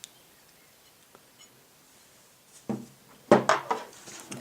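Sharp metallic clicks and knocks of a Glock pistol barrel and slide being handled as the barrel is swapped between slides. It is mostly quiet at first, then a single click, then a quick cluster of louder clicks about three seconds in.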